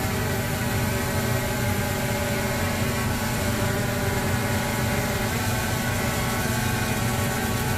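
DJI Phantom quadcopter's rotors buzzing steadily, a hum of many even tones over a hiss of prop wash, heard close up.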